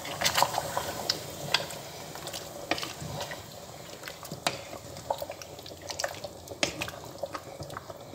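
Wooden spoon stirring chunks of meat through soup in a steel pot: the liquid sloshes, and the spoon knocks against the pot now and then.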